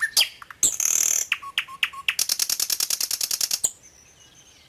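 A small bird chirping close by: short sliding chirps, then a fast rattling trill of about a dozen clicks a second that lasts about a second and a half, then only faint chirps.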